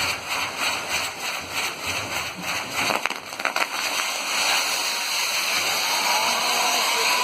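Fireworks burning with a hissing spray of sparks, pulsing in a quick even rhythm, with a few sharp cracks about three seconds in, then a steadier hiss.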